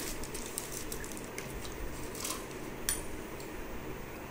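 Metal spoon clinking and scraping lightly against a small glass bowl as water is scooped in it: a string of faint clicks, with one louder clink about three seconds in.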